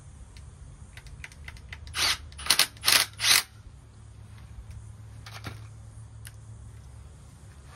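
Cordless drill-driver run in four short bursts about two to three and a half seconds in, and once more briefly near the middle, working the screws on an air-conditioner blower fan motor's mounting bracket, with light clicks of the tool and parts in between.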